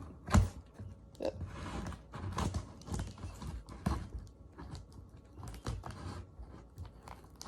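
Hands working at a heavily taped package: irregular knocks and taps on the box, with short stretches of scratchy tearing and peeling of packing tape.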